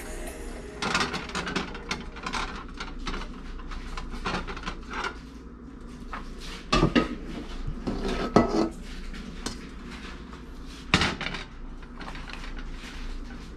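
Metal wok being handled and wiped dry with a cloth: irregular rubbing and metal clinks, with a few louder clanks about halfway through and near the end as the pan is knocked and set down.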